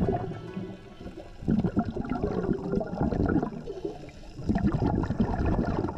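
Underwater gurgling and bubbling recorded through a camera housing, swelling in two surges: one about a second and a half in, the other about four and a half seconds in. The rhythm fits a scuba diver's exhaled regulator bubbles.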